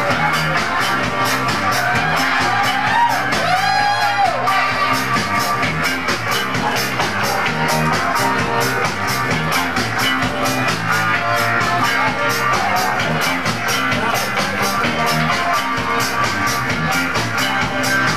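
Rock music with a steady drum beat and guitar, playing loud and unbroken.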